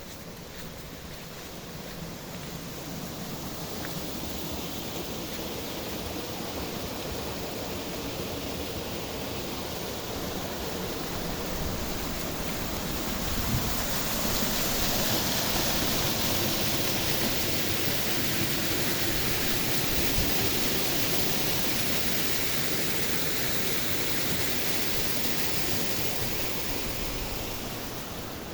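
Waterfall rushing: a steady hiss of falling water that swells gradually over the first half and eases off near the end.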